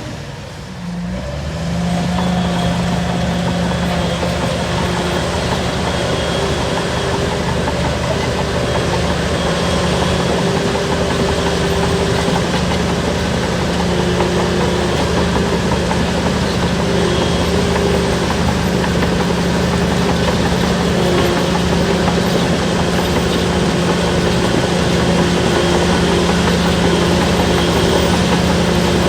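Shantui DH17 bulldozer's diesel engine running at a steady speed, dipping briefly at the start and coming back up about two seconds in.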